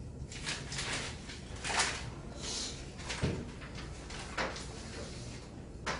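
Pages of a paper workbook being leafed through and handled: a string of short paper rustles, with a soft knock about halfway through.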